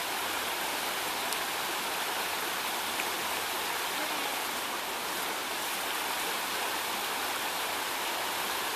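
Creek water rushing steadily over a fallen log in a shallow riffle, an even hiss.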